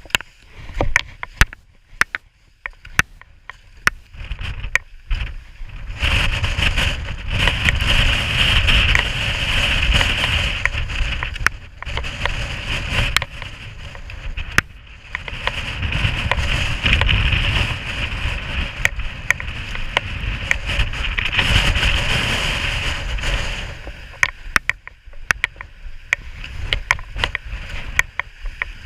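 Strong wind gusting across the microphone, a rumbling buffet that swells about six seconds in, dips and surges again before easing near the end. Sharp clicks and knocks come through all along.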